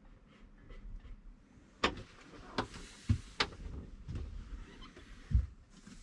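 Scattered sharp knocks and clunks, about six in a few seconds, with a brief scraping rustle around the middle: tools and fittings knocking during work on a sink's plumbing.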